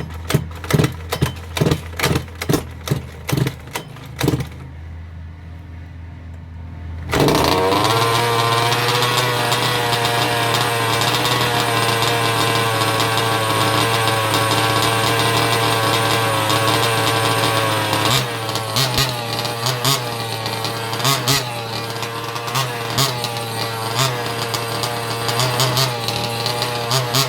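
Small two-stroke petrol engine of a 1/5-scale RC car being turned over with rhythmic pulses, about three a second, for several seconds. It catches about seven seconds in and idles steadily. In the last third it gets short throttle blips.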